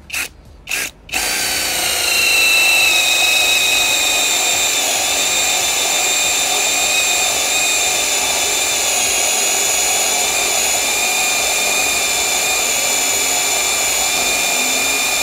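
WORX WU369 cordless drill's brushless motor boring a 35 mm hole in a wooden log in plain drilling mode (no hammer). After two brief bursts it runs with a steady whine from about a second in, keeping its speed under load without bogging down, and cuts off abruptly at the end.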